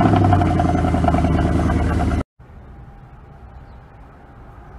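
2010 Mercedes-Benz C63 AMG's 6.2-litre V8 running at a high, steady cold-start idle just after firing up. It cuts off abruptly about two seconds in, leaving only faint background noise.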